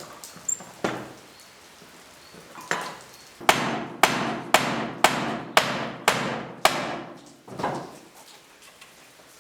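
Hammer blows: a couple of single strikes, then a steady run of about seven sharp blows at roughly two a second, and one softer strike after.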